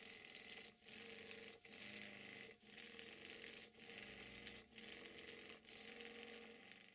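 SVS twin oscillating-cylinder brass steam engine running on steam from an external boiler: a faint, steady hiss of steam, broken by a short dip about once a second in a regular beat.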